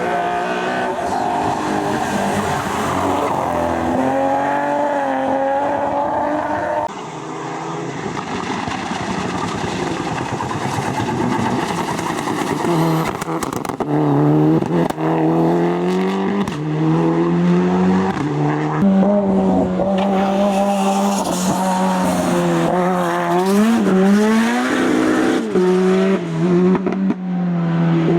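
Hillclimb race car engines at full throttle, revving hard and shifting through the gears, the pitch climbing and dropping at each shift. The sound changes abruptly about seven seconds in.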